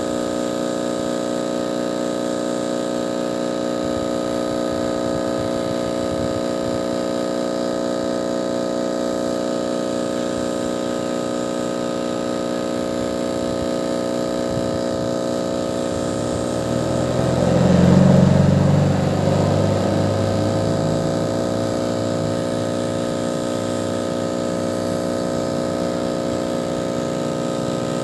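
Hot air rework station running, its blower fan giving a steady whine of many tones as it blows hot air over a cracked phone screen to soften the adhesive. About 17 seconds in a louder, deeper rush swells for a couple of seconds and then eases back.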